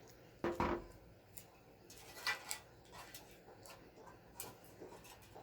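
Small clicks and knocks from handling wires and tools during soldering work, with a louder clatter about half a second in and another brief scrape a little over two seconds in.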